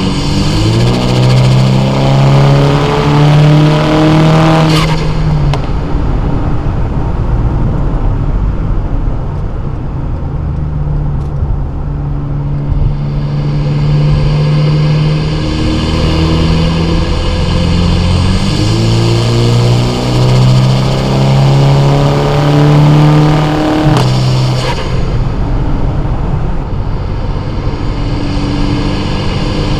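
Car engine and exhaust pulling hard under acceleration twice, the pitch rising steadily each time for several seconds before cutting off abruptly with a short crack. Between the two pulls it runs at a steadier engine speed; the second pull comes about two-thirds of the way through.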